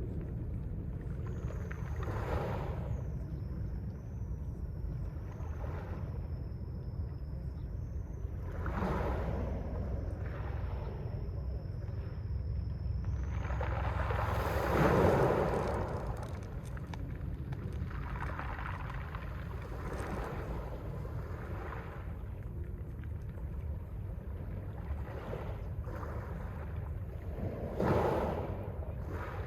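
Mediterranean sea waves breaking and washing on the shore, over a steady low rumble. Several waves swell up in turn, the loudest about halfway through and another near the end.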